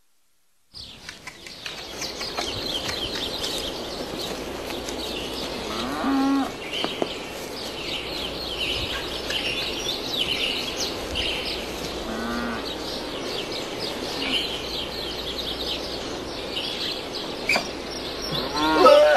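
Farmyard ambience: many small birds chirping throughout, with two short calls from a farm animal, one about six seconds in and another about twelve seconds in.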